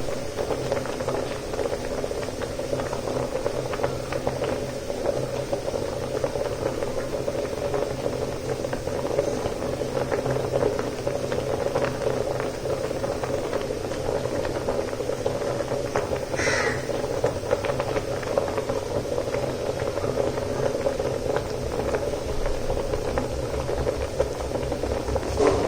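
Rice boiling in a pot: a steady, dense bubbling and crackle with a low hum underneath. A bird calls briefly about two-thirds of the way through and again at the very end.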